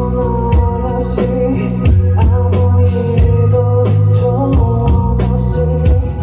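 Live indie rock band playing, with a drum kit keeping a steady beat under sustained bass and held instrument lines; the low notes change about two seconds in.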